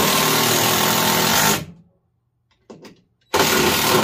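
Power drill running at full speed, boring with a drill bit, in two runs. The first cuts off about a second and a half in, and after a short pause the second starts near the end.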